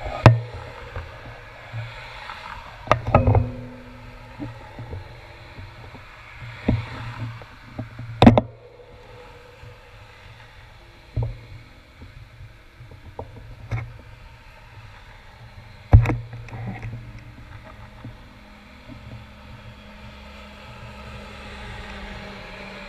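Traffic crossing an intersection, muffled as heard through a sealed action-camera housing, with a bus going by near the end. Sharp knocks break in every few seconds.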